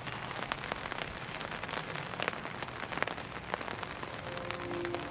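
Steady rain falling, with many individual raindrops ticking sharply over the hiss.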